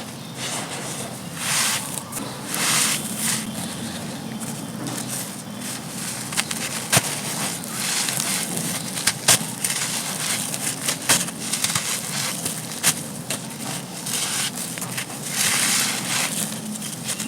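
Dry, gritty black sand-cement chunks crumbling and crunching, with a steady crackle of grit and a few sharp snaps as pieces break.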